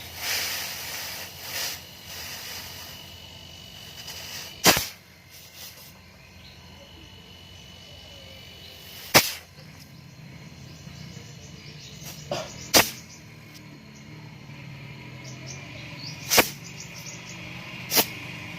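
About six sharp knocks or clicks, a few seconds apart, two of them close together around the middle, over steady cricket chirping in the background.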